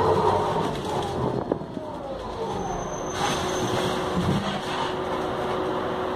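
City bus under way, heard from inside the passenger cabin: engine and drivetrain running, with a whine that slides down in pitch over the first two seconds and then a steady tone, plus one click about a second and a half in.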